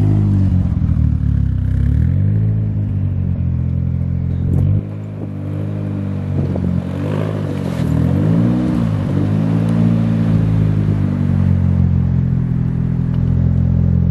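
Nissan 240SX with a swapped RB25 straight-six engine, its exhaust note rising and falling as the revs are blipped several times, then settling to a steady idle near the end.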